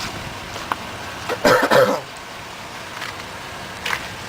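A person coughs once, loudly, about a second and a half in, over steady background noise.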